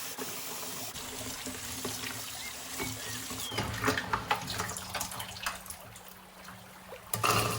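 Water running from a tap into a sink, with scattered clicks and knocks from handling and a louder burst near the end.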